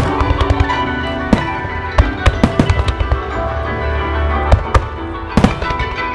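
Aerial fireworks shells bursting in a dozen or so sharp, irregularly spaced bangs, over continuous music playing through loudspeakers.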